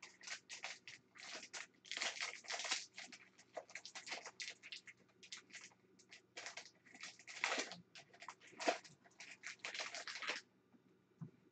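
Foil wrapper of an Upper Deck trading-card pack crinkling and tearing as it is opened by hand and the cards are pulled out. A dense run of irregular crackles stops about ten seconds in.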